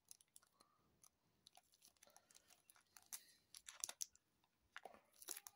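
Faint crinkling and small clicks of a thin plastic zip bag being handled and worked open around a stack of cards, a little busier in the second half.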